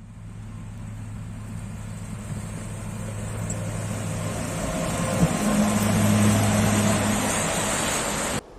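A motor vehicle's engine running with a steady low hum, growing louder over about six seconds, then cutting off suddenly near the end.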